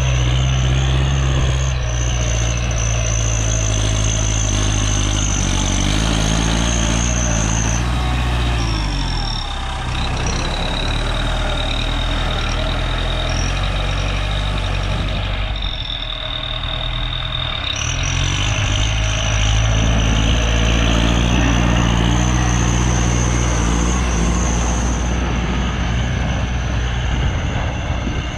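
Kubota L5018 tractor's diesel engine working steadily while pulling a rotary tiller through dry soil, with a steady high whine above it. The engine note falls about eight seconds in, stays lower for a while, and picks back up about eighteen seconds in.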